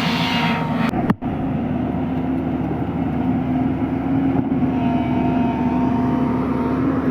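JCB excavator's diesel engine running steadily, with a brief break in the sound about a second in.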